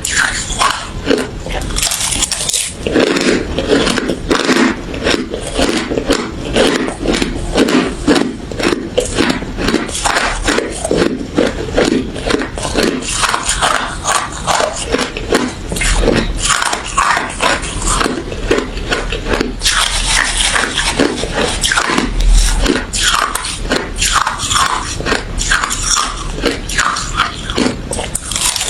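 Close-miked chewing of crunchy refrozen crushed ice and frost: a dense, continuous run of crisp cracks and crunches as the ice is bitten and ground between the teeth.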